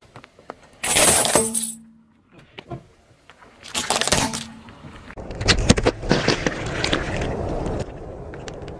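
A car tyre crushing objects in quick succession: a plastic tambourine's metal jingles clinking as its frame cracks about a second in, a small plastic toy cracking about four seconds in, then a few seconds of dense crunching and crackling, with a drink carton squashed and squirting near the end.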